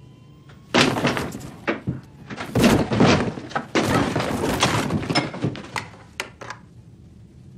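Suspended ceiling tiles being pushed up and shifted about: a loose run of knocks, scrapes and clatter starting about a second in, thinning to a few separate clicks near the end.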